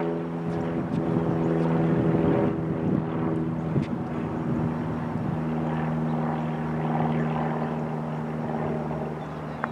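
A steady engine or motor drone made of several level tones, which shifts slightly about halfway through. A single sharp knock comes near the end.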